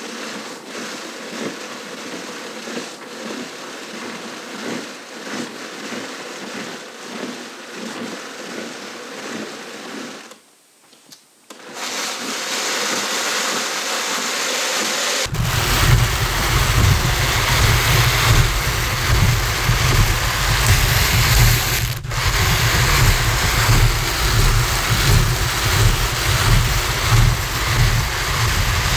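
Hand-cranked drum carder turning as alpaca fiber is carded onto its drum: a scratchy rasp of fiber dragging over the carding cloth, pulsing with the turns at first. After a short break it runs steadier and louder, with a low rumble under it.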